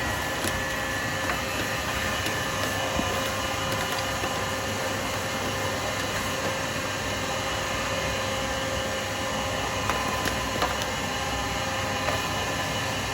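Steady hum of a workshop machine's motor running, with a few faint clicks on top.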